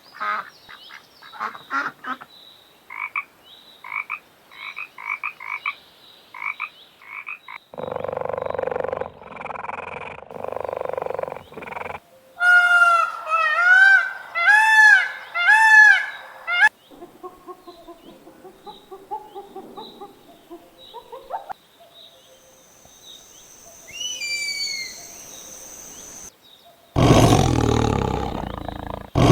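A string of different animal calls, one after another. First a quick series of short clicking calls, then a rough noisy stretch, then four loud rising-and-falling cries. After that come fainter calls and a few falling chirps, and near the end a loud low call.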